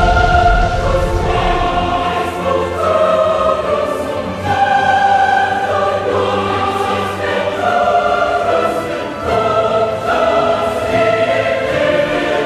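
Dramatic choral music: a choir holding sustained chords that change every second or so. It opens with a deep low boom under the first chord.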